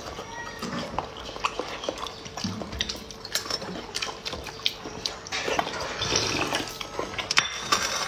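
Eating sounds: chopsticks and a plastic spoon clicking lightly and irregularly against a plastic hot-pot tub, with chewing of hot-pot food. There is a denser scraping patch about two-thirds of the way through.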